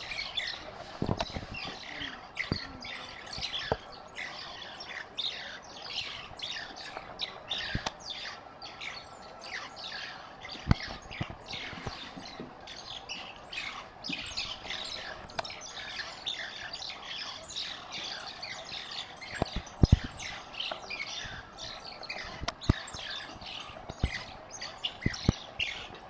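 A pack of banded mongooses mobbing a snake, keeping up a dense, continuous chorus of rapid high chirps and twitters, each call dropping quickly in pitch. A few sharp knocks cut through, the loudest about 11 and 20 seconds in.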